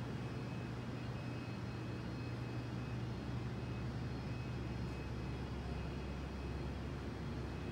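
Steady low rumble and hum of room tone, with faint steady high-pitched tones above it and no distinct events.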